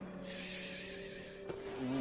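Music: low held notes under a wavering high shimmer, a click about one and a half seconds in, then a note sliding downward near the end.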